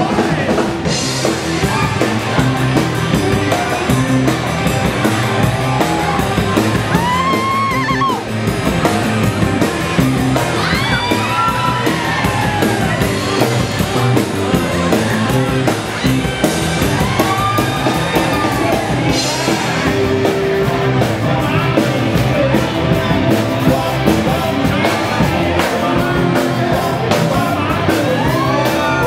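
Loud rock-and-roll dance music with a singer, and people yelling and whooping over it.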